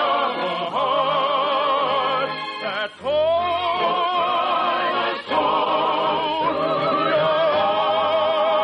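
Operetta music: an orchestra with operatic singing in long held notes with wide vibrato, pausing briefly twice and sweeping upward into a new phrase about three seconds in.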